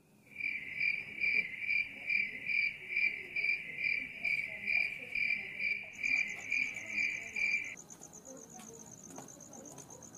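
Crickets chirping: one gives a steady run of high chirps, about two and a half a second, that stops about three quarters of the way through. A second, higher cricket trill sets in about six seconds in and keeps going.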